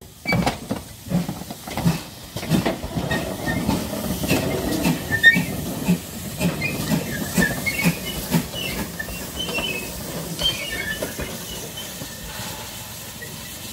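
Great Western Railway tank steam locomotive running slowly along the track, with a regular beat and a hiss of steam.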